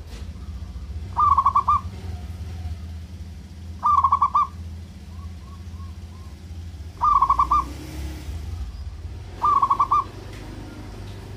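Zebra dove (perkutut) singing: four short, rapid, trilling coo phrases about two and a half to three seconds apart, with a few fainter notes between the second and third.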